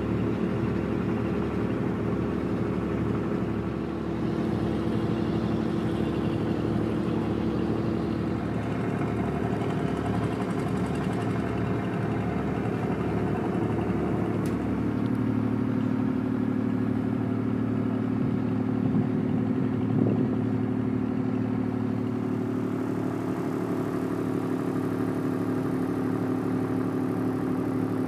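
A tugboat's diesel engines running with a steady, even hum. The tone shifts slightly about halfway through.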